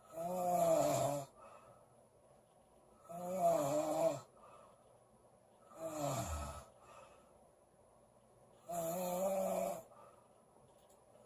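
A woman snoring loudly, four snores in a slow, regular rhythm about three seconds apart, each lasting about a second; the third drops in pitch toward its end.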